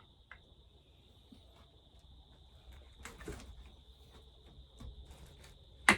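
A screwdriver straining on a stiff screw in a McCulloch 800 chainsaw, with faint ticks and creaks, then one sharp crack near the end as the screw breaks loose.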